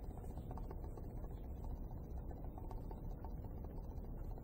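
Faint, soft ticks of baking soda being sprinkled by hand onto a superglued plexiglass gearbox, with small handling noises, over a steady low hum.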